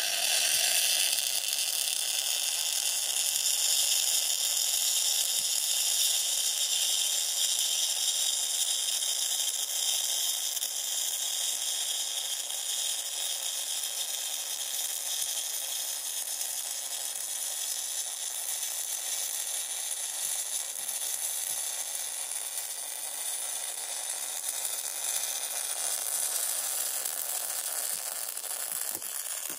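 MIG welding arc crackling and sizzling through one continuous weld of about thirty seconds, cutting off abruptly near the end when the welder lets go of the trigger.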